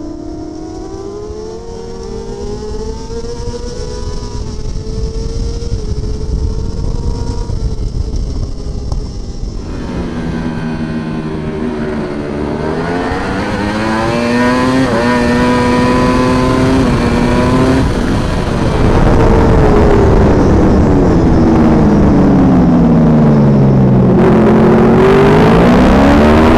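Superbike racing motorcycle engines at race speed, heard from onboard cameras: the engine note climbs and drops sharply through gear changes, then falls steadily for several seconds under braking into a corner before climbing again as the bike accelerates out, over a steady rushing noise.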